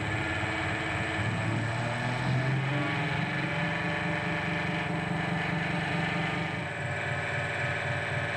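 HillCo UltraMax 18-frame honey extractor running empty, its three-phase electric motor and gear drive humming steadily as the reel spins up to speed. The run is smooth and steady, without any jerking.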